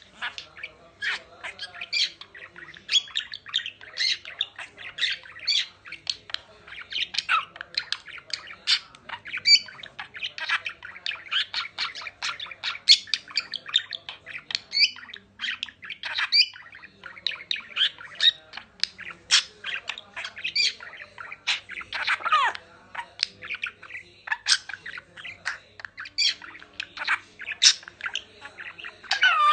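A budgerigar and a blue-and-gold macaw chattering at each other: an unbroken stream of short chirps and squawks, with one longer falling call about two-thirds of the way through.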